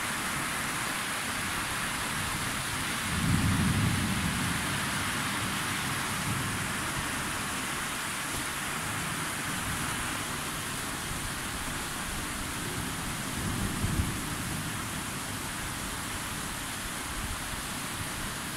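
Steady rain hissing throughout. A rumble of thunder swells about three seconds in and dies away over several seconds, and a fainter rumble comes later.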